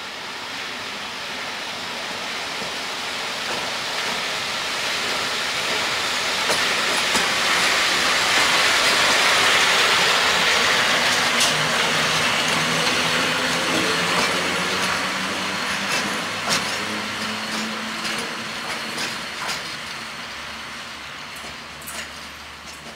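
PKP class EP07 electric locomotive EP07-338 passing at low speed: the running noise of wheels and machinery swells as it approaches and fades as it moves away, with a low hum and sharp wheel clicks over the rail joints in the second half.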